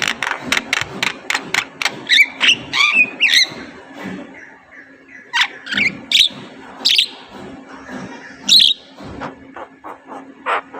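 Javan myna (jalak kebo) calling: a fast run of sharp clicking notes, then a short warble and a series of separate harsh whistled notes spaced a second or so apart.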